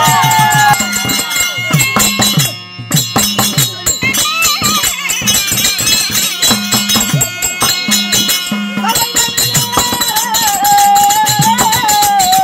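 Therukoothu folk ensemble playing: a steady hand-drum beat with bright metallic strokes keeping time, a harmonium's held notes, and a small double-reed pipe (mukhaveena) playing a wavering high melody in the last few seconds. The music drops out briefly about two and a half seconds in.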